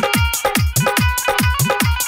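Instrumental break in a Bhojpuri qawwali: an electronic drum beat of bass hits that drop in pitch, about four a second, with sharp high ticks, under held keyboard chords.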